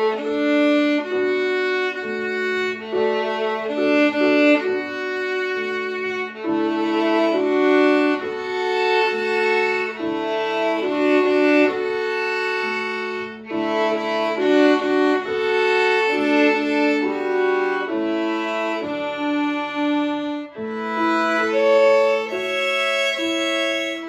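Two violins playing a slow duet: a bowed melody over a lower part of long held notes.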